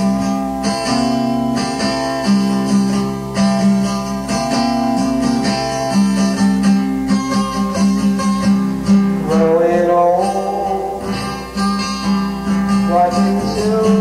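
Acoustic guitar music, plucked and strummed, played back from a 1983 cassette tape recording.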